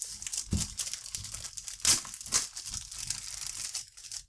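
Packaging crinkling and rustling as it is handled, with a few sharper crackles about two seconds in.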